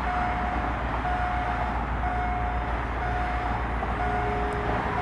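Low, steady rumble of a distant train approaching, with a single beeping tone that repeats about once a second throughout.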